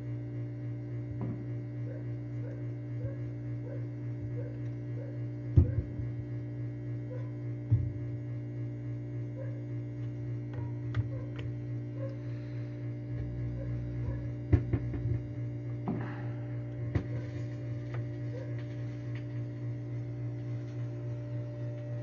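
Steady electrical hum from a turntable and sound system with no music playing, under faint regular ticks. A few sharp clicks and thumps break in, the loudest about five and a half seconds in.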